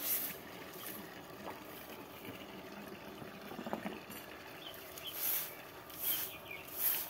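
Long broom of dried mustard stalks swept across a bare earth yard: scratchy swishes about once a second, with a pause in the middle and three more strokes near the end.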